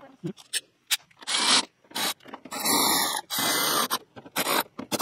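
ACDelco cordless electric ratchet run in a string of short bursts, driving in the screws of a new cab marker light on the truck's metal roof, after a few light clicks of handling.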